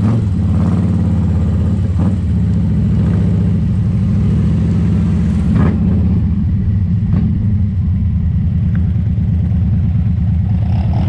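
Motorcycle engine running steadily at low speed, heard from on the bike: a deep, even engine note with a few short clicks.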